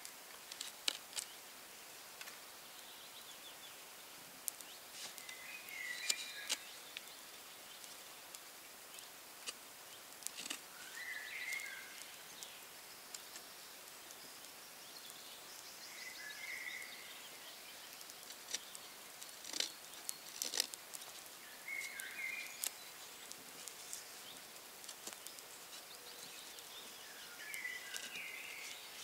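Knife carving a green wood stick: scattered sharp clicks and scrapes as the blade cuts. A songbird repeats a short phrase about every five seconds.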